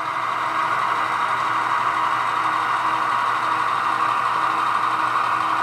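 HO scale model diesel locomotive's sound decoder playing a steady diesel engine drone through its small on-board speaker, a tinny hissing rumble as the locomotive creeps along.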